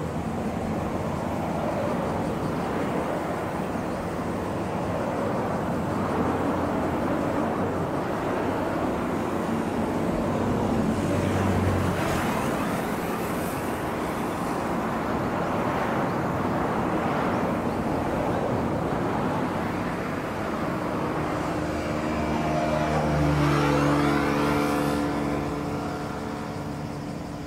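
Steady rush of road traffic passing, swelling and fading, with one vehicle's engine passing close about three-quarters of the way through, its tones sweeping as it goes by.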